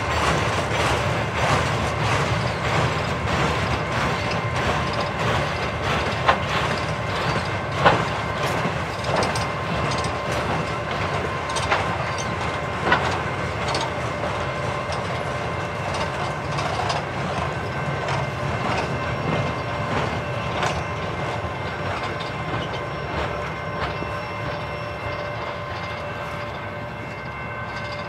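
Double-stack intermodal freight train passing close by at speed: a steady rumble and rattle of container cars rolling over the rails, with sharp clanks every few seconds. It eases off slightly near the end.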